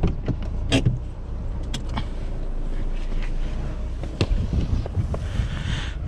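Fiat Toro 2.0 turbo diesel idling with a steady low hum while the driver's door is opened, with several sharp clicks and clunks from the latch and handle. After about four seconds the sound turns rougher, with more rumble.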